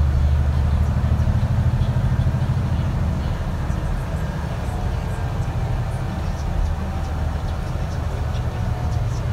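Alexander Dennis Enviro 400 MMC double-decker bus running, heard from on board: a steady low engine and drivetrain drone, a little louder in the first few seconds. A faint whine rises slowly in the second half, with small rattles.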